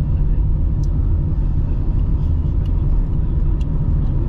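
Steady low rumble of a car cruising at about 40 km/h, engine and tyre noise heard from inside the cabin, with a few faint clicks.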